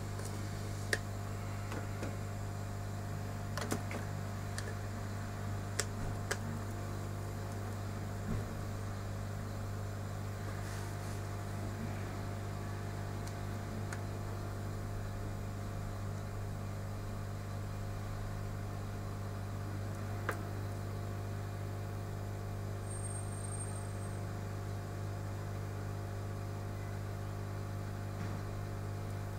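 Steady low machine hum with several constant tones above it, broken by a few small clicks, most in the first several seconds and one about twenty seconds in.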